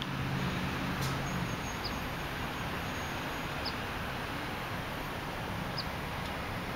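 Steady outdoor background noise with a low hum that fades out after about a second and a half, and three short, high bird chirps spaced about two seconds apart.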